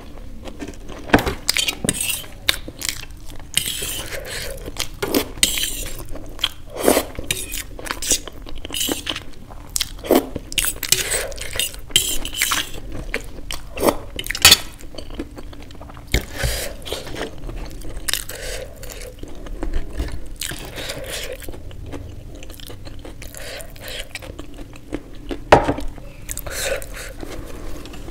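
Chewing of Maggi noodles and samosa, with a fork scraping and clinking on a stainless steel plate as food is scooped up.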